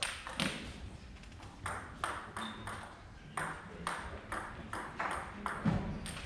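Table tennis ball striking bats and table in a rally: a dozen or so sharp pings in an uneven rhythm, about two or three a second.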